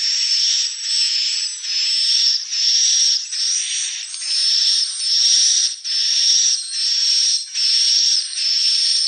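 Swiftlet calls: an unbroken run of high, buzzy chirps, one about every 0.8 seconds.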